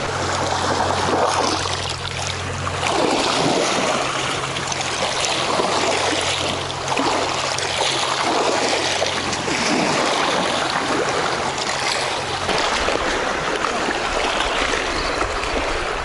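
Water lapping and splashing in a steady, rolling wash. A steady low hum runs underneath and cuts off about twelve and a half seconds in.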